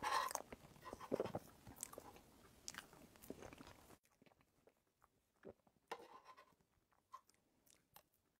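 Faint close-up eating sounds of someone chewing a soft green paste: quiet mouth noises and lip smacks with scattered small clicks, a little louder at the start and about a second in, then fainter.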